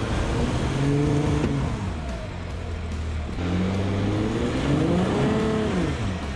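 Volkswagen Touareg's V6 engine revving up and falling back twice as its front tyre spins and slips in a muddy rut.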